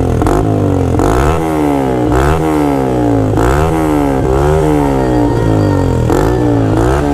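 Yamaha R15 V3's 155 cc single-cylinder engine breathing through an aftermarket SC Project exhaust, revved repeatedly at a standstill. The pitch climbs and drops back about once a second, loud and raspy.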